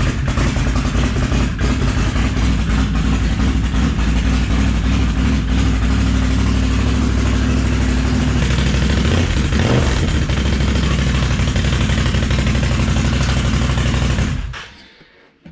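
A 2017 Can-Am Outlander 1000R's V-twin engine running steadily just after starting, then falling away near the end. It runs evenly on both cylinders with fresh spark plugs fitted, and the intermittent misfire is gone.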